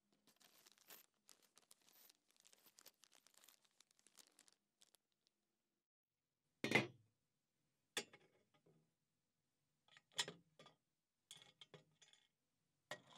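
A small plastic bag of rivets crinkling faintly for about five seconds. After a pause come about five sharp separate clicks and knocks of metal on metal, the loudest a little past halfway, as steel rivet pins are set down on a metal strip.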